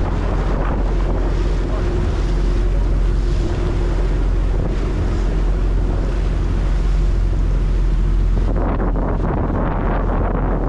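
Wind buffeting the microphone over the steady drone of a dive boat's engine and the hiss of its wake churning alongside. About eight and a half seconds in the hiss falls away, leaving mostly wind rumble.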